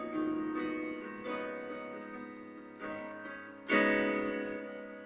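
Piano playing a slow introduction of sustained chords, a new chord struck every second or so and left to fade, the strongest about three and a half seconds in.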